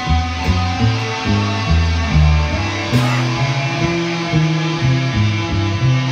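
Improvised duo for electric bass and guitar: the bass plays a busy line of short notes stepping up and down, under sustained guitar tones.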